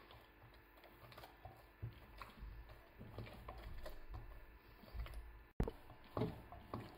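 Hands kneading soft, oiled yeast dough in a glass bowl: quiet squishing and pressing of the dough, with small taps and a few sharper knocks against the bowl near the end.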